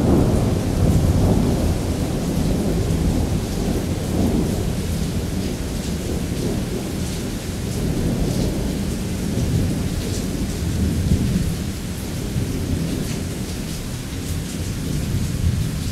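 A long, low rumble of thunder, strongest at first and slowly easing off, over steady heavy rain.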